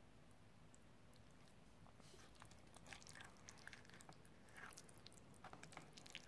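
Faint eating sounds: a mouthful of chicken curry and rice being chewed, with light clicks and scrapes of a fork in the plastic meal tray, mostly from about two seconds in.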